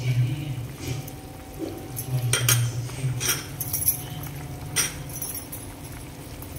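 Metal ladle clinking against a cooking pan while stirring a thick gravy: about six separate sharp clinks spread through, over a steady low hum.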